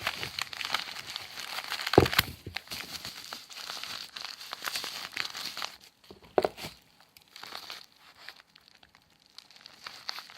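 Packaging being unwrapped by hand: uneven crinkling and rustling with small crackles, a sharp knock about two seconds in and another about six seconds in, then quieter handling.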